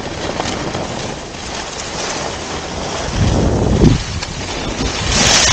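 Wind buffeting the microphone of a skiing camera, with skis hissing and scraping over packed snow. The rumble swells about three seconds in, and a brighter scraping hiss builds near the end as a turn is carved.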